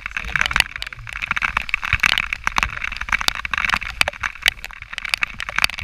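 Noise of a mountain bike being ridden: wind rumble on the microphone with a dense run of irregular clicks and rattles.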